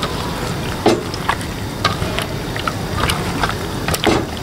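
Hands squishing and kneading chicken pieces in a yogurt and spice marinade in a steel bowl: irregular wet squelches and clicks, over a steady low rumble.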